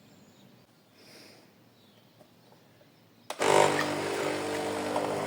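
Philips Senseo coffee machine's water pump kicking in suddenly about three seconds in and running steadily with a hum and hiss, pushing water through: the machine working again now that its water-level sensor reads a full tank.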